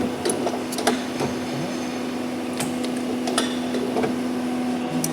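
CNC plate punching machine idling with a steady hum, while irregular light metallic clicks and knocks come from handling the punched steel plate and measuring its hole.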